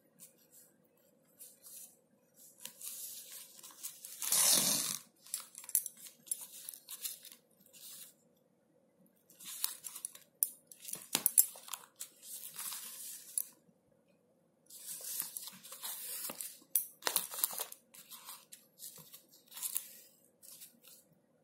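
Woven plastic sack rustling and crinkling in irregular bursts as it is handled and stitched, with yarn drawn through the plastic weave; the loudest scrape comes about four seconds in.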